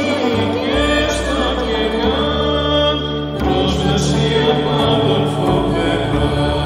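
Song: a voice sings a verse in Greek in a winding, chant-like line over instrumental accompaniment with steady held low notes.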